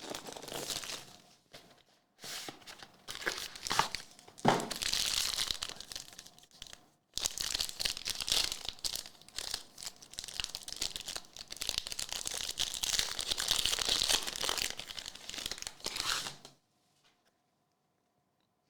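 Plastic wrapping on a trading-card box and packs being torn open and crinkled, a continuous crackling rustle that stops near the end.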